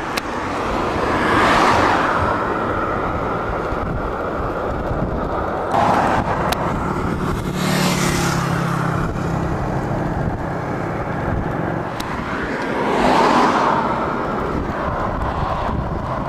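Road traffic: cars passing by over a steady rumble, three of them swelling up and fading away in turn.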